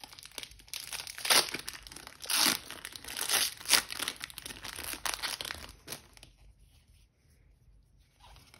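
Foil wrapper of a Pokémon card booster pack being torn open and crinkled in the hands, a run of sharp crackles and rips that stops about six seconds in.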